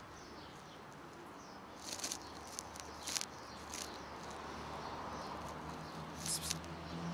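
Quiet outdoor background with a handful of brief, soft noises a second or so apart, and a faint low hum that comes in near the end.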